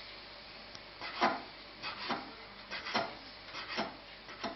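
A hand scraping and sweeping cut egg noodles across a floured wooden pastry board: a run of short, dry scrapes at irregular intervals, the loudest about a second in.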